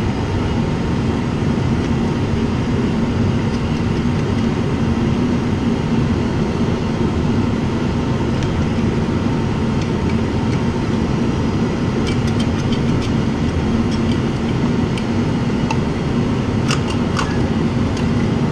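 Steady droning hum of a running machine, with a few light metal clicks about two-thirds of the way through and again near the end as the aluminium cylinder head of a Honda Shadow V-twin is worked loose from its cylinder.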